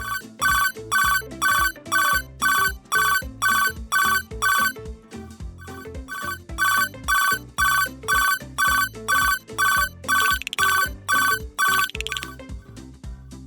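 Japanese railroad crossing warning bell ringing about twice a second, a two-note electronic ding over cartoon background music. It pauses briefly about five seconds in, then resumes and stops about a second before the end.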